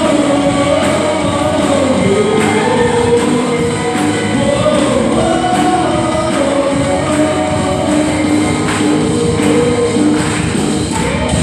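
Christian worship song: several voices singing a sustained melody together over a band with a steady beat.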